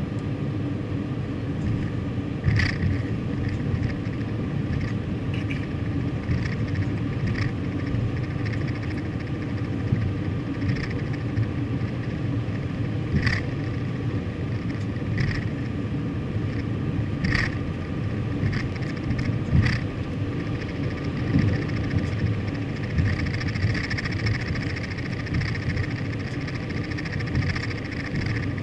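Car driving, heard from inside the cabin: steady low road and engine rumble, with a sharp click every few seconds.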